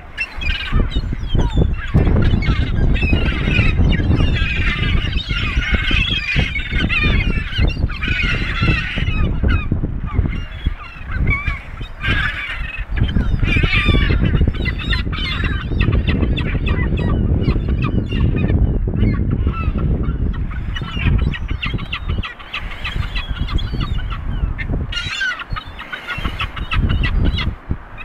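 A flock of gulls and Canada geese calling over one another in many short, harsh honking squawks, over a steady low rumble.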